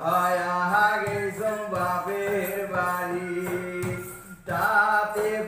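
A man singing a Goalpariya folk song in long, sliding melodic phrases over a steady low tone. The singing breaks off briefly about four seconds in, then resumes.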